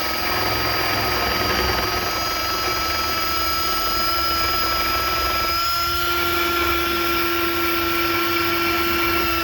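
Drill spinning a wire brush, scrubbing dirt and grime off the brake caliper bracket where the pads sit and slide. A steady high-pitched motor whine with a scrubbing hiss.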